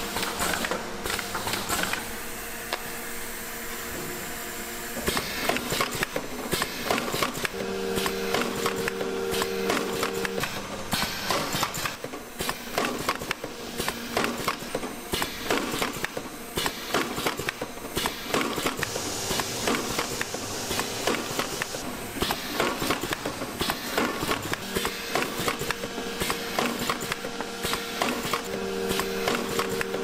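Busy, irregular clicking and clattering of small plastic and metal parts and machinery during power strip assembly. A steady machine hum comes in for a few seconds around a third of the way through and again near the end.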